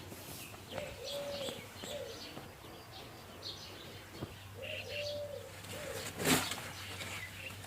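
A dove cooing: a low, steady cooing phrase about a second in and again around five seconds in, with small birds chirping in the background. A short, loud rustle-like burst a little after six seconds.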